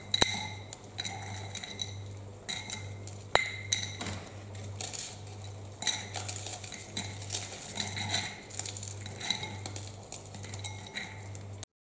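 Dry rectangular butter biscuits being snapped and crumbled by hand into a glass bowl: light, irregular crackles and clinks as pieces fall onto the glass. The sound cuts off suddenly near the end.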